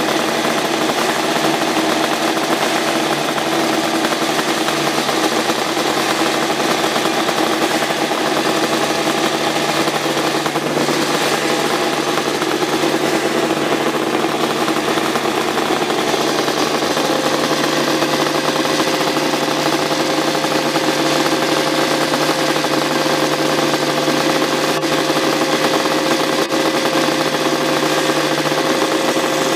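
Kawasaki KR500 square-four two-stroke racing engine running steadily on its stand with an even note and no revving. A slightly higher steady tone joins about halfway through.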